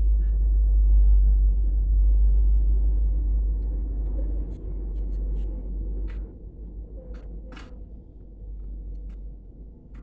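A steady low rumble that fades about six seconds in, with a few small clicks and taps scattered through the second half.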